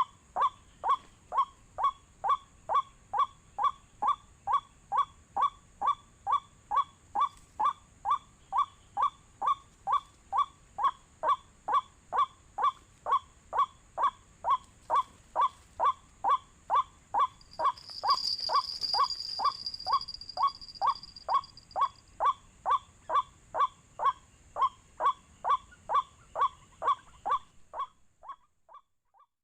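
White-breasted waterhen call, the kind played from an MP3 as a lure: a single harsh note repeated evenly about twice a second, stopping shortly before the end. A steady high hiss runs underneath, and a louder high-pitched whine joins from about eighteen to twenty-two seconds in.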